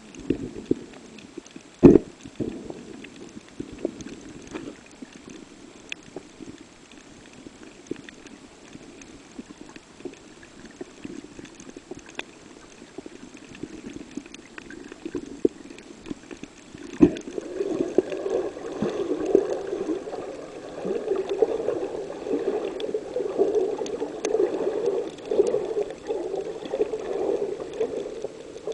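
Muffled underwater water noise picked up through a camera underwater, with two sharp knocks. A louder, steady bubbling gurgle starts a little past halfway.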